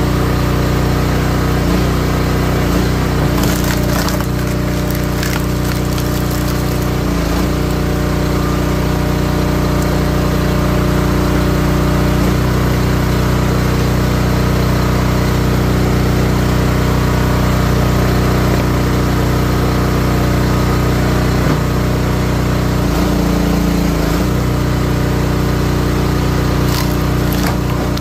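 Wolfe Ridge 28-ton log splitter running steadily under its engine, its note shifting a few times as the ram works. Wood cracks and splinters as rounds split, about four seconds in and again near the end.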